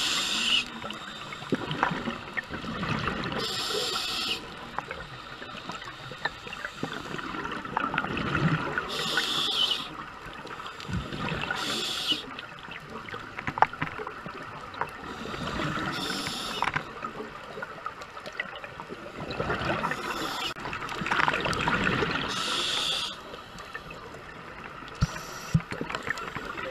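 Scuba diver breathing through a regulator underwater: short hisses every three to four seconds, with bubbling and gurgling in between.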